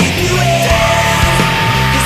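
Loud emo rock band recording: distorted guitars, bass and drums playing steadily, with a long held high note over the top.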